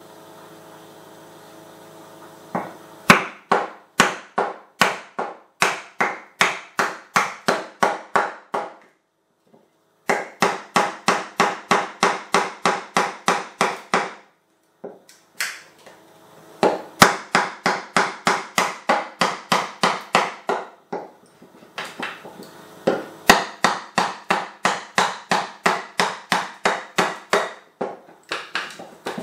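Wooden mallet striking the spine of a Nessmuk knife, batoning it down through a willow log. Sharp wooden knocks come about three a second, in four runs separated by short pauses.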